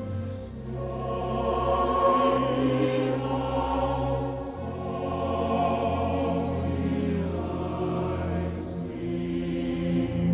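A choir singing slow held chords with string orchestra, low strings sustaining long notes underneath.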